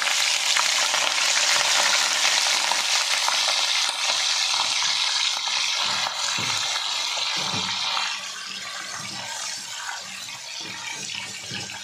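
Frozen chicken pieces sizzling hard in hot oil in a non-stick wok as they are stirred with a spatula. The sizzle dies down noticeably about eight seconds in as the cold meat cools the oil.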